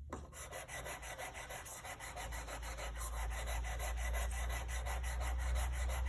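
Steel block plane blade, held in a honing jig, scrubbed back and forth on 150-grit sandpaper in quick, even strokes. It is grinding the 30-degree primary bevel and wearing away the old secondary bevel back to the edge.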